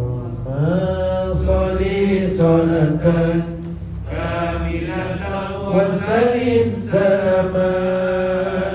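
Several voices chanting an Arabic salawat on the Prophet together, in a slow, sustained melodic chant with long held notes and brief pauses for breath.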